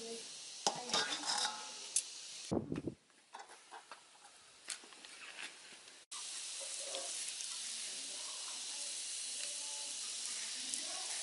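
Long metal tongs poking and clinking in a basin of charcoal, with a few scattered clicks. About six seconds in, a steady sizzling hiss cuts in suddenly: whole fish in a wire grilling basket cooking over the hot coals.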